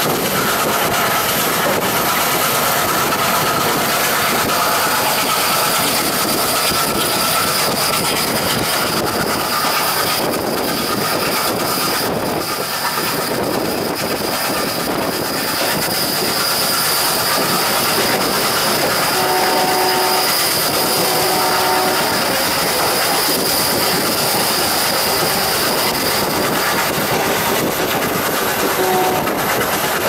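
Passenger coach rolling at speed, heard from inside: steady rattle and clickety-clack of wheels on rail joints. The horn of the hauling ALCO WDM-3A diesel locomotive sounds in two short blasts about two-thirds of the way through, and once more briefly near the end.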